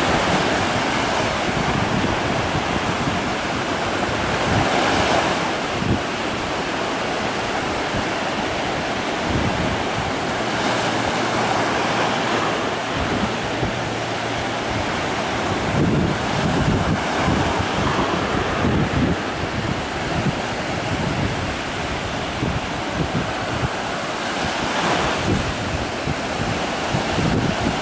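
Mediterranean surf: small waves breaking and washing in, the rush swelling every several seconds. Wind buffets the microphone with a fluttering low rumble.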